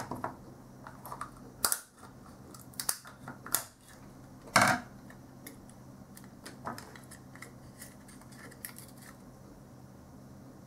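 Snap-fit plastic case of a small AC-DC wall adapter being forced apart by hand, cracking and clicking several times as the clips give way. The loudest crack comes about halfway through, with fainter clicks after it.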